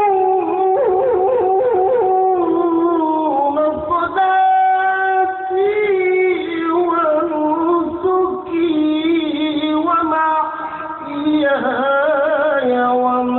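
Male qari reciting the Qur'an in the melodic tilawah style, one voice holding long notes with quick ornamental turns and trills, stepping down to a lower held note near the end.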